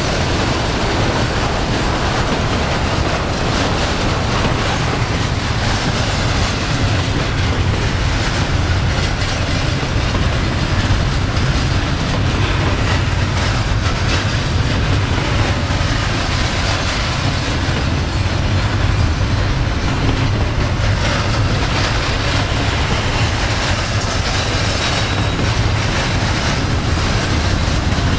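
Double-stack intermodal freight train's well cars rolling past at close range: a steady, loud rumble of steel wheels on the rails, with a run of clicks as the wheels pass over the track.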